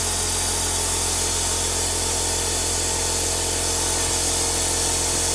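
Electric air compressor running steadily, a low motor hum under a hiss. It supplies the shop air that pressurizes the cylinder through the compression-tester hose, holding the valves shut while the stem seals are changed.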